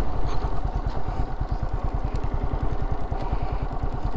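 Motorcycle engine running steadily as the bike rides along, heard from the rider's seat, with a fast, even exhaust beat.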